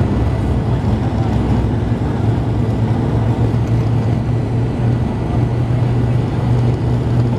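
Cabin sound of an ATR turboprop airliner on its takeoff roll at takeoff power: a loud, steady low propeller drone over rushing air and runway rumble.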